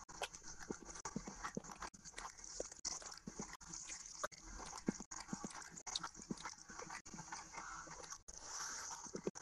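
Close-miked mouth sounds of eating rice and curry by hand: chewing, with irregular wet smacks and clicks of the lips and mouth.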